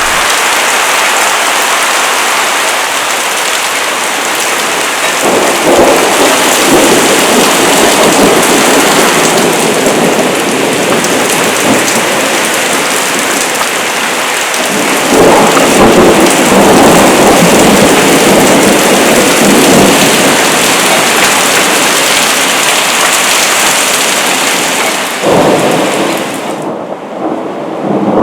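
Heavy rain pouring down with thunder rumbling, the rumble swelling about five seconds in and again, louder and longer, around fifteen seconds in. The hiss of the rain drops away near the end.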